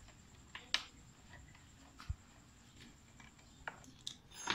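A few sharp clicks and light taps of plastic motorcycle fairing parts and wiring being handled as the headlight assembly and front cowl are taken apart, with one dull thump about two seconds in.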